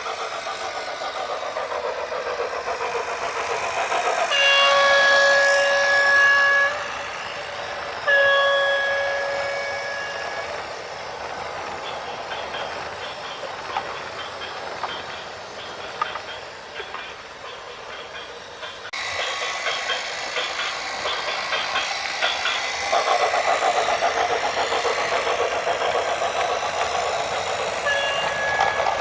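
A vehicle horn sounds two long blasts with a short gap, and starts again near the end, over the continuous running noise of heavy traffic or machinery.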